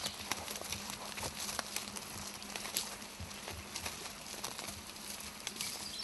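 Horses walking, their hooves clopping irregularly on the ground, over a faint steady hum.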